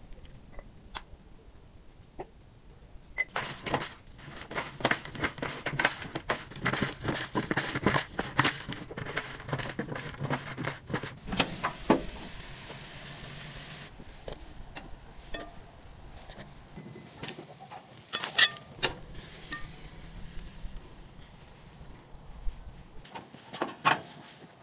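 Cooking and food-handling sounds: a dense run of quick clicks and clatter, then a short steady hiss, then scattered sharp clicks and knocks.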